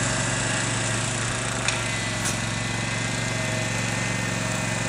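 Garden tractor engine running at a steady, even speed while it pushes snow with a front blade.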